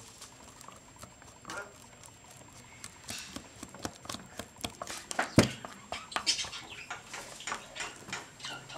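Wooden craft stick stirring glue-and-activator slime in a clear plastic cup: irregular wet clicks and squelches as the slime firms up, getting busier after about three seconds, with one sharper knock near the middle.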